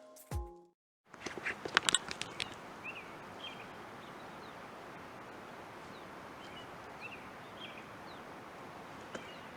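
Short chirps from a small bird, repeated every second or two, over a steady outdoor hiss, with a few clicks and rustles early on. A music track ends just at the start.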